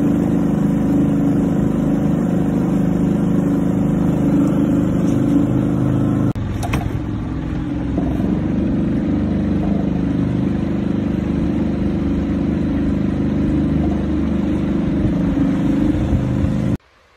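Small outboard motor on a canoe running steadily under way. There is a brief click about six and a half seconds in, and the motor sound cuts off abruptly near the end.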